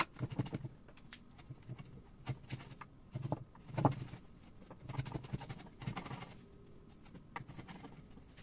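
Wood chisel paring out a notch in a jati belanda (pallet pine) beam by hand: irregular short scraping and shaving strokes with small knocks, and one sharper knock right at the start.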